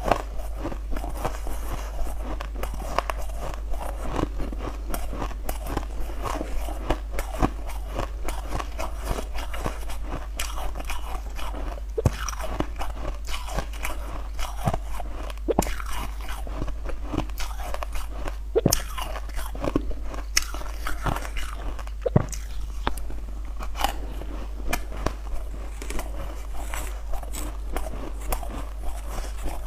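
Close-up crunching and chewing of fluffy, snow-like ice, picked up by a clip-on mic: a dense, irregular run of crisp crunches with no pauses, over a steady low hum.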